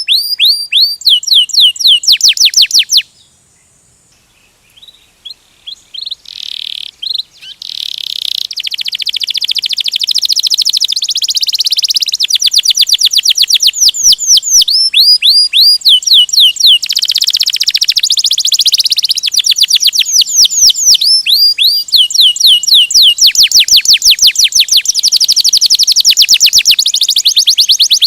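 Canary singing a long rolling song of fast trills, each made of rapid downward-sweeping notes. It breaks off briefly about three seconds in, then comes back with buzzy rolls that build into dense, loud trilling.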